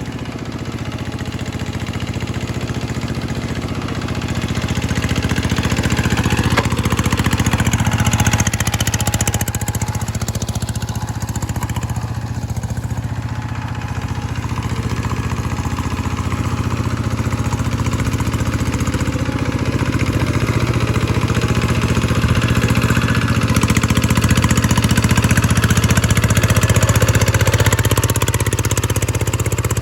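G1000 hand tractor engine running steadily under test, its steady hum swelling somewhat louder a few seconds in and again later on.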